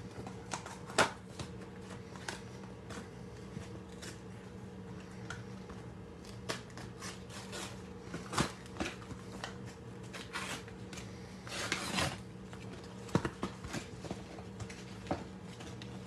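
A cardboard pizza box being handled, giving scattered light taps and rustles with a longer rustle about twelve seconds in, over a faint steady low hum.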